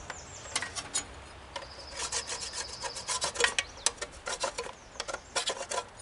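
Hardened pine sap, softened with denatured alcohol, being scraped and rubbed off a metal planer part with a small hand tool: a run of short, irregular scraping strokes that come thicker and faster after about two seconds.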